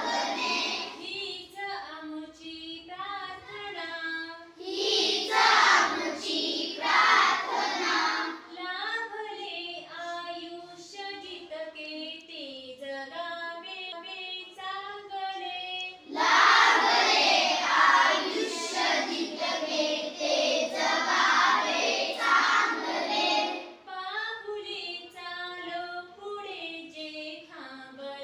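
A class of schoolchildren singing a song together in a classroom, alternating between quieter passages and louder full-group passages, the louder ones around five seconds in and again from about sixteen to twenty-three seconds.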